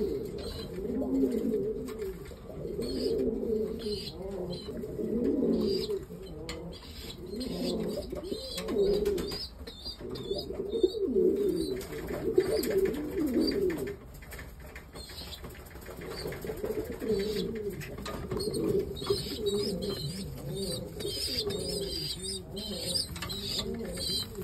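Domestic pigeons cooing in low rolling phrases, mixed with short high squeaks and wing flapping from squabs begging to be fed by the adult.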